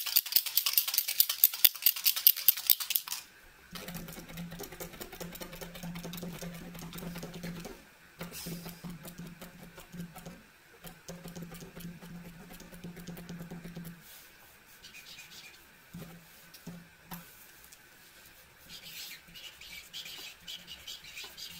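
Uni-Paint PX-20 oil-based paint marker shaken hard for about three seconds, the mixing ball inside the barrel rattling rapidly to mix the paint before use. Then a steady low hum, broken off several times. From about fifteen seconds in, faint intermittent scratching of the marker tip on paper.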